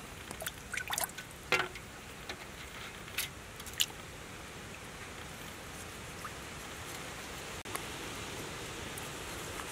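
Water dripping and trickling over a steady hiss of running water, with a few sharp drips and light taps in the first four seconds.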